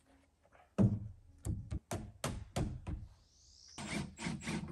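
A quick run of sharp knocks, about seven in two seconds starting about a second in, then a short rising whoosh and three more knocks near the end.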